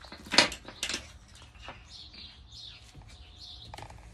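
Objects being handled and knocked together: two sharp clacks about half a second apart near the start, then a few lighter ticks. Small birds chirp faintly in the background.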